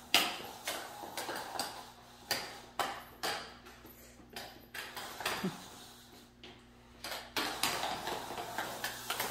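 Footsteps and sharp clicks of Heelys wheeled sneakers on a hard tile floor, coming irregularly, several a second at times, with quieter stretches between.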